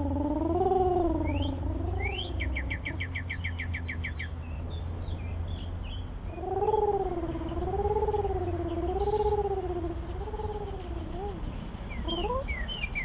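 Small birds chirping, with a rapid trill of about a dozen notes about two seconds in. Over it, a steady low rumble and a louder wavering tone whose pitch rises and falls about once a second, heard at the start and again for several seconds in the middle.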